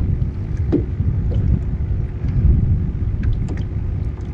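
Steady low rumble around a small fishing boat on open water, with a faint steady hum and a few light ticks.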